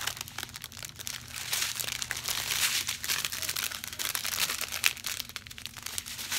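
Packaging crinkling and rustling in irregular crackles as a mail-order diamond painting kit is handled and unwrapped.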